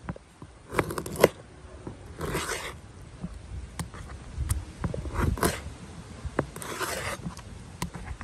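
Large knife cutting ribbon fish into steaks on a cutting board: a few short scraping strokes as the blade saws through the fish and scrapes the board, with a sharp knock about a second in.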